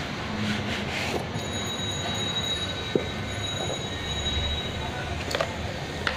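Handling of a rolled magnetic dartboard as it is slid out of its cardboard box and laid down: scraping, and short light knocks about three seconds in and twice near the end. Under it runs a steady background noise, with a thin high whine through the middle.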